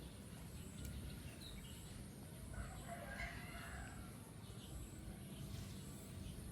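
An animal call, about a second and a half long, near the middle, over a low steady rumble of background noise.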